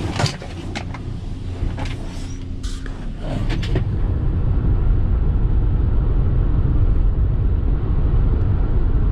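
A few clicks and knocks, then from about three seconds in a steady low rumble of a vehicle driving, heard from inside the cab.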